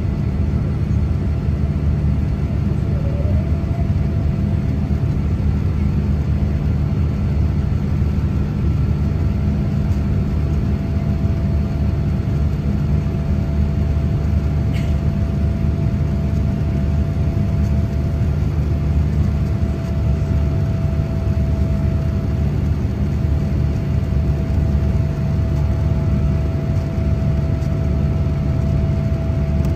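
Boeing 787-8 engines running at climb power, heard inside the cabin from a seat over the wing: a loud, steady low rumble with a faint steady whine above it.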